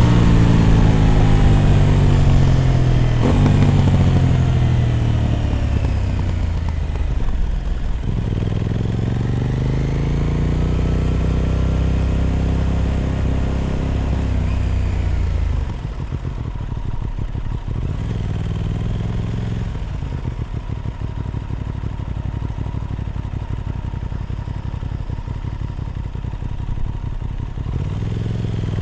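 Aprilia RS 660 Extrema's parallel-twin engine through an SC Project exhaust, heard from on board while riding. The revs fall away with a gear change about three seconds in, then rise and fall again. About sixteen seconds in it settles to a lower, steadier note, and the revs climb again near the end.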